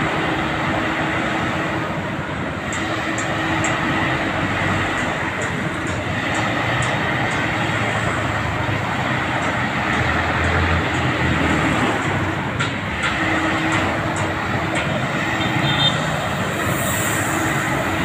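A Philippine National Railways diesel commuter train running past: a steady rumble with scattered light clicks, over road traffic.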